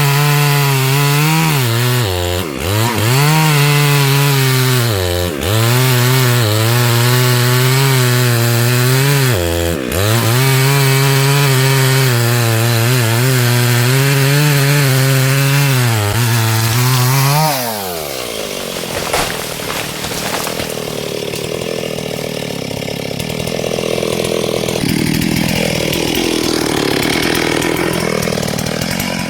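Two-stroke chainsaw running at high revs while cutting wood, its note dipping briefly three times. After about seventeen seconds the engine note drops away steeply as the throttle is released, and a quieter, rougher running sound follows.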